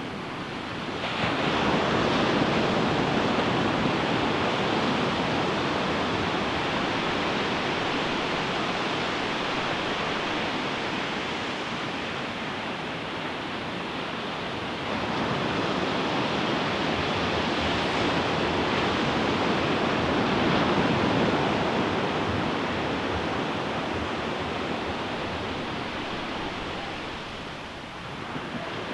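Ocean surf breaking on a beach: one wave breaks about a second in and another about halfway, each followed by a long, slowly fading wash.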